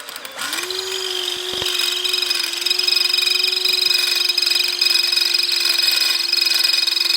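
Electric drill spinning up and running steadily with a constant whine as its bit drills into a broken mirror stud in a scooter's metal mirror-mount casting. A single click sounds about a second and a half in.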